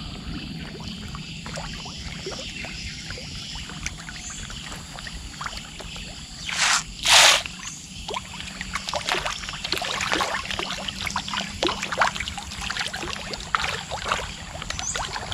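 Climbing perch (ikan puyu) feeding at the surface of a pond: many small splashes and pops as they take food. About seven seconds in there are two brief, loud splashes.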